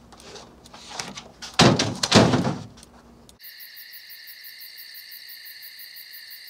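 Two loud knocks, like a door shutting, about two seconds in. The sound then cuts abruptly to a steady, evenly pulsing high chirring of night insects such as crickets.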